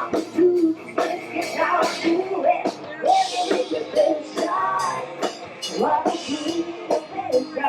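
Rock music with a singer over a steady drum-kit beat.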